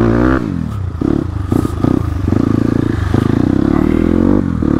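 Crossfire RM250 dirt bike engine, heard from the rider's seat, revving in short blips as the bike pulls away, then climbing steadily in pitch until a brief drop at a gear change near the end.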